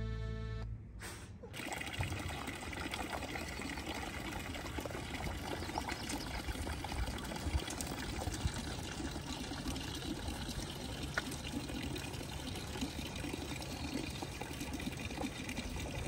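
Water runs steadily from the spout of a wooden village fountain and splashes into its wooden trough, a continuous trickling pour. Background music stops about a second in.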